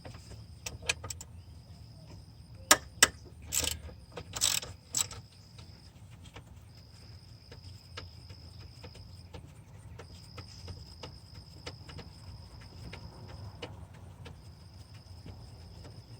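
A ratchet wrench working the alternator's 13 mm mounting bolts loose: a few sharp metal clicks and knocks in the first five seconds, then a long run of faint, irregular ratchet ticks as the bolts are backed out.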